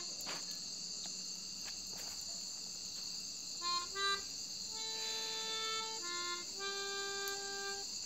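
Melodica playing a slow melody, starting about halfway in with a few short notes and then longer held notes, over a steady chorus of crickets.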